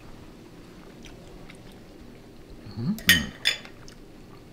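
Cutlery clinking twice against tableware about three seconds in, the first clink ringing briefly. A short hummed 'mm' comes just before it.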